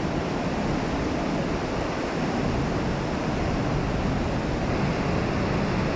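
Rushing whitewater of a fast mountain stream tumbling over rocks, a loud, steady roar of water.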